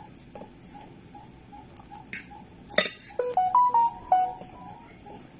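A short chime melody: after a sharp click, a few clear ringing notes step up and down for about a second and a half. A faint steady ticking, about two a second, runs underneath.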